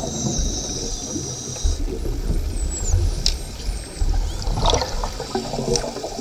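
Underwater din of a sardine bait-ball feeding frenzy: rushing, bubbling water with a low rumble, high gliding whistles of dolphins, and a few sharp clicks. A steady high tone sounds for the first two seconds.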